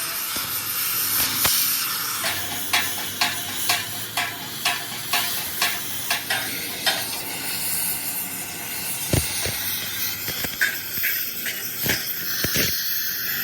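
Electric arc welding on a cracked tractor axle tube, a steady sizzling hiss. A run of about a dozen sharp taps, roughly two or three a second, comes over it in the middle, followed by a few scattered knocks.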